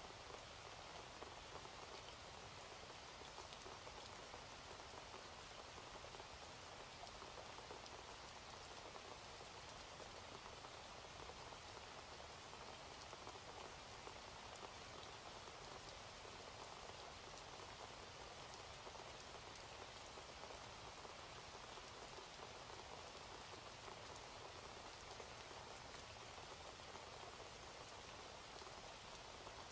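Faint, steady rain falling.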